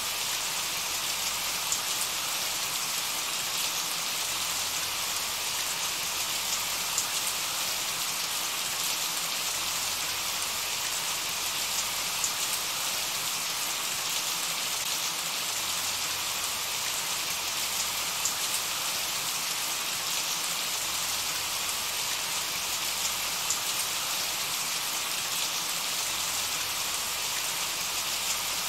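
Steady rain: an even hiss of many falling drops, with occasional sharper ticks of single drops.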